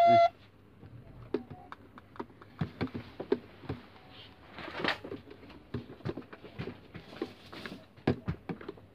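Plastic toy ATM savings bank being handled: an electronic beep right at the start, then scattered clicks and knocks of its plastic case, door and dial, with a brief rustle about five seconds in.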